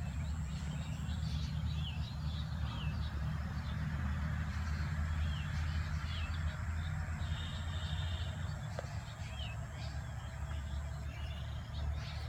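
Small birds chirping over and over, short curling calls, over a steady low rumble.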